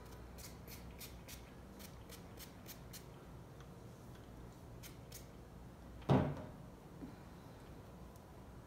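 Water spray bottle, a repurposed conditioner bottle, squirting water onto hair: a quick run of short hissing sprays, about three a second, over the first three seconds, then two more a couple of seconds later. A single louder thump about six seconds in.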